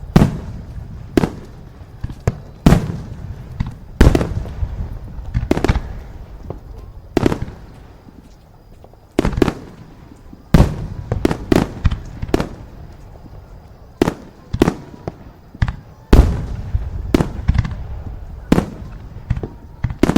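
Fireworks exploding: a string of sharp bangs at irregular intervals, sometimes two or three in quick succession, each trailing off in a low rumbling echo.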